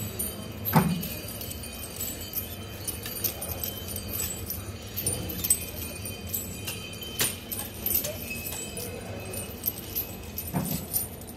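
Iron chains on a walking elephant's legs and body clinking and jangling irregularly as it steps, with a dull thump about a second in and another near the end.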